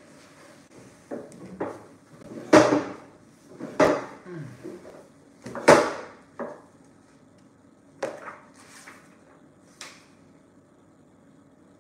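Handling knocks and thuds on a wooden table as a person settles at it, the three loudest about two and a half, four and six seconds in. Softer page-turning rustles of a large book follow near the end.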